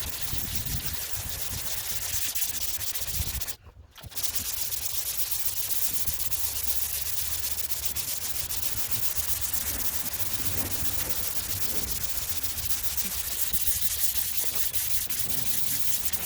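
Long sanding block worked back and forth by hand over a primed sheet-metal car hood: a steady scratchy rasp of sandpaper on the slick sand primer. It drops out for about half a second some three and a half seconds in.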